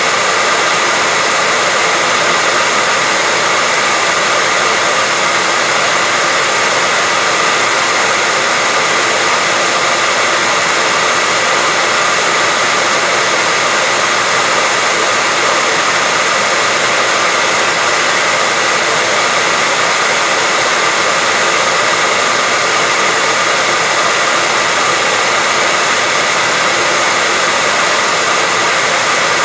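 Hair dryer blowing continuously at a steady pitch: an even rushing noise with a faint whine, unchanging throughout.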